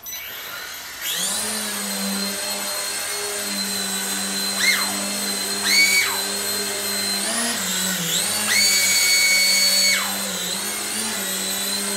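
Small electric coaxial RC helicopter (BOMPOW LC02 Thunder) spinning up about a second in, then a steady whirring hum from its rotors. A high motor whine rises and falls several times with the stick inputs and is held high for a longer stretch near the end.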